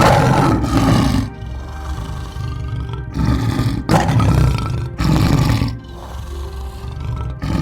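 Lion roaring, several loud roars of about a second each, over background music.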